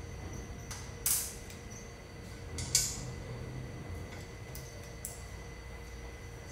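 Steady low hum of the workshop with a few short scrapes and clinks of metal hand tools being handled at a wax-working bench; the loudest comes a little before three seconds in, another about a second in.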